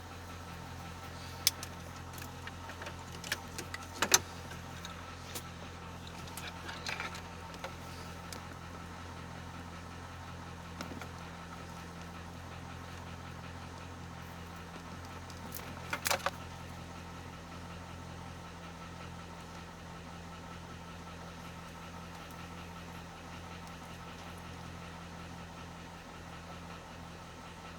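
A steady low hum, with a few sharp clicks and light rattles, the loudest about four seconds in and a short burst of them around sixteen seconds.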